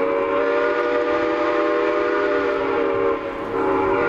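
Train whistle sounding a long, steady multi-tone blast that breaks off briefly about three seconds in and then sounds again.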